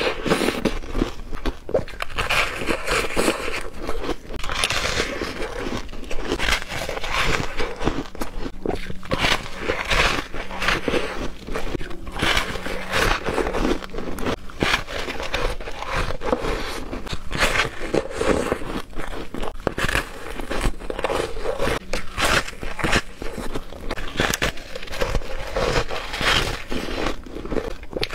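Biting and chewing a frozen foam ice donut: dense, irregular crunching and crackling, bite after bite.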